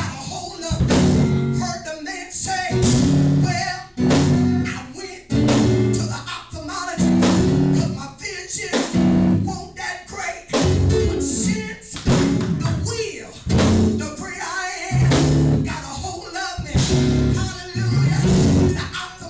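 Live church band music with guitar and drums, playing in a steady pulse about once a second, with voices over it.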